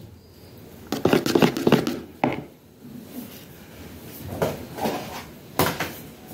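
Knocks and clatter of kitchen utensils and containers being handled, in short clusters with quieter gaps between.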